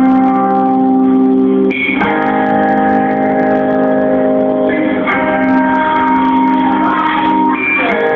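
Instrumental song intro played live: held chords that change every two to three seconds, with no singing yet.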